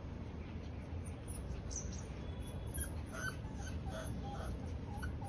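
Husky puppies play-fighting, giving a few short high squeaks and yips in the second half, over a steady low rumble.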